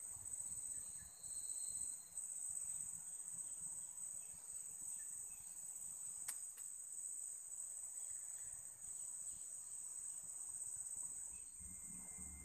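Steady high-pitched insect chorus from the riverside vegetation, with a faint click about six seconds in.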